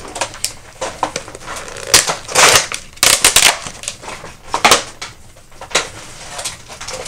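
Clear plastic toy packaging and its cardboard backing being pried, twisted and pulled apart by hand: irregular crackles and sharp snaps, with a few louder bursts of crinkling. The packs are tightly sealed and hard to open.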